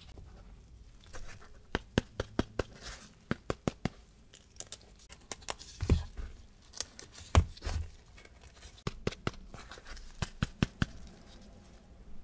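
Gloved hands handling baked choux eclair shells on a lined baking tray: a quick string of small crackles and taps as the crisp shells are picked up and rubbed, with two louder knocks about halfway through.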